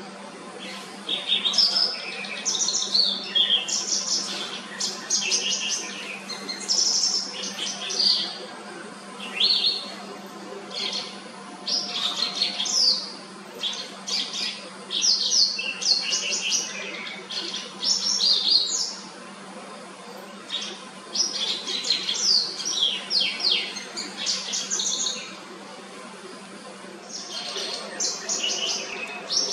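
White-browed wagtail singing: phrases of clear, quick chirps and short trills, a second or two each, separated by brief pauses.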